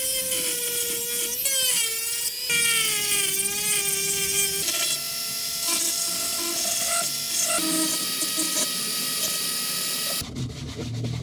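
Electric power tool working the steel of a PC case: its motor pitch sags under load over the first few seconds, then it runs on with a steady tone over a high hiss, and near the end it gives way to clicking and rubbing.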